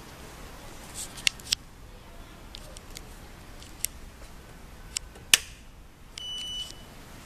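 A few light clicks, then a sharp click of the manual glue binding machine's rocker power switch being turned on, followed under a second later by a short high electronic beep from the machine as it powers up.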